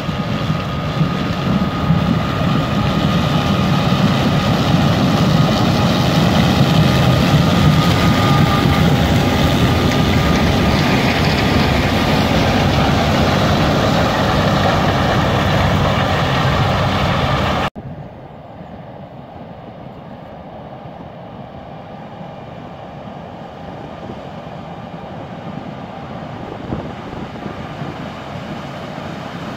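Claas Lexion 7700 combine harvester harvesting grain maize: its engine and threshing machinery run with a steady whine, loud and swelling as the machine passes close. About two-thirds in, the sound drops abruptly to a much quieter, more distant running.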